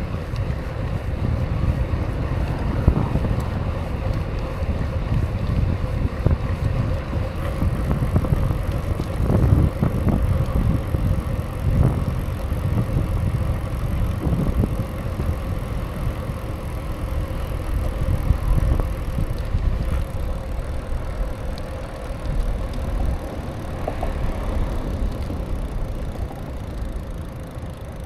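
Bicycle being ridden: a steady rumble of tyres rolling over the ground with some wind on the microphone, and a few brief knocks from the bike.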